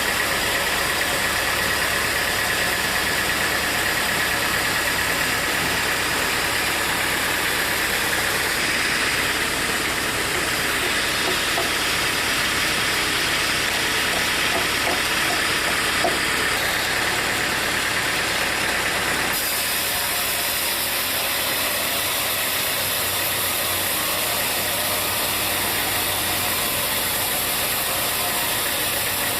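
Sawmill machinery running steadily: a constant mechanical noise with a hiss. The sound changes suddenly three times, about a third of the way in, a little past halfway and about two thirds of the way in.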